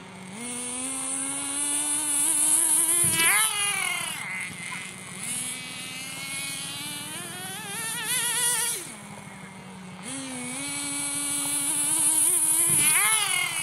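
Nitro RC short-course truck's small glow-fuel engine revving under throttle. Three times its whine climbs in pitch as the truck speeds up, then drops and wavers as the throttle comes off.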